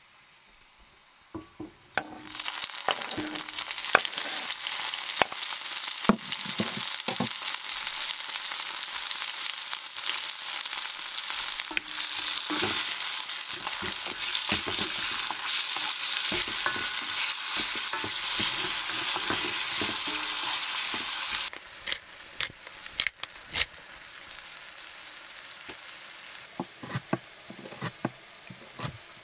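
Food frying in a pan, a loud steady sizzle with clicks and knocks of a utensil stirring. The sizzle starts about two seconds in and stops suddenly about three quarters of the way through, leaving quieter clicks and knocks.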